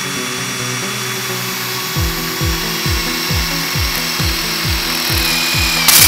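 Cordless drill running as its bit bores into the rubber tread of a BFGoodrich KM2 mud-terrain tire, under background music with a steady beat that comes in about two seconds in. At the very end a loud hiss starts as air begins escaping from the inflated tire through the fresh hole.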